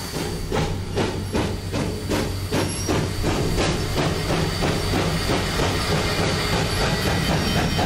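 Steam locomotive working, its exhaust chuffing at about two beats a second over a steady low hum and steam hiss; the beats run together into a steadier rumble in the second half.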